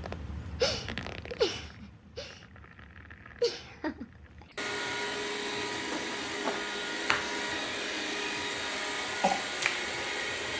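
A few short sounds, each falling in pitch, over a quiet background. About halfway in, this switches abruptly to the steady drone of a small electric motor, with a hum and a few faint clicks over it.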